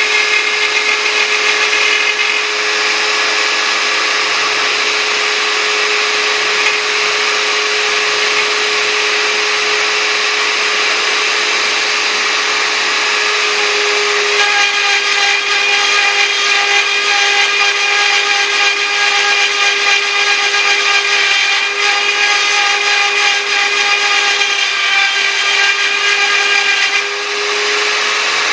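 CNC router spindle running at a steady high whine while its cutter mills lettering, with a continuous rasp of cutting; the tone changes slightly about halfway through and dips briefly near the end.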